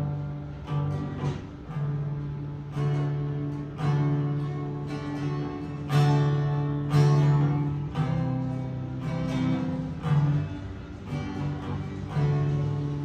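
Acoustic guitar strummed in chords, with a strong strum every second or two and the low strings ringing between them.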